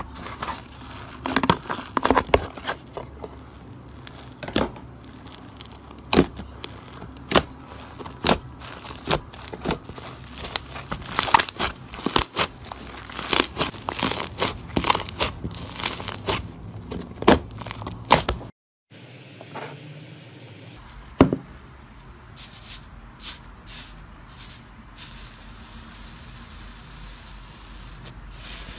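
Hands kneading and squeezing soft, airy blue slime, which crackles and pops in sharp, irregular clicks as trapped air bubbles burst. About two-thirds of the way through the sound drops out briefly, then carries on with sparser, quieter pops.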